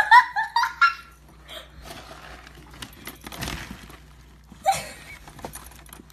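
Plastic trash bag rustling and crinkling as a dog noses through a kitchen trash can. It opens with a short, loud burst of voice, and a second brief voiced sound comes near the end.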